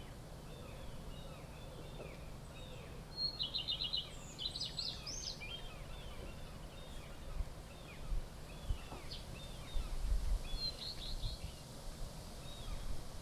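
Small birds chirping, with two quick rattling trills about three to five seconds in and a few more short trills near eleven seconds, over a steady low background rumble.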